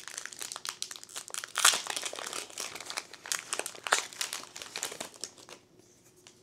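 Foil trading-card booster pack crinkling and tearing as it is ripped open by hand and the cards are pulled out of the wrapper. The crinkling dies away about a second before the end.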